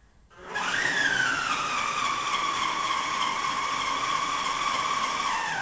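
Homemade winch running: an old Makita drill motor driving a planetary gearbox and turning the line drum. A whine starts about half a second in, rises briefly, then settles lower and holds steady, and drops in pitch near the end.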